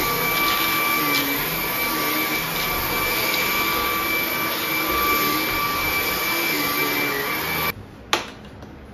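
Hart 20V cordless stick vacuum with a brushless motor, running while it is pushed over an area rug: a steady rush of air with a thin high whine. It stops abruptly near the end, and a single sharp click follows.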